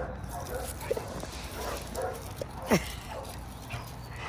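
A dog whimpering in short, faint whines, then one louder whine that falls steeply in pitch a little past halfway.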